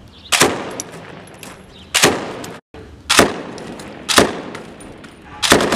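A PK-type belt-fed machine gun firing five times, about a second apart, each loud report followed by a trailing echo.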